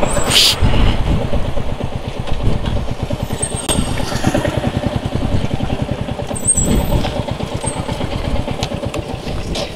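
Royal Enfield Bullet 350 single-cylinder engine running at low revs with a quick, even beat as the motorcycle rolls slowly to a stop and idles, heard from the rider's seat.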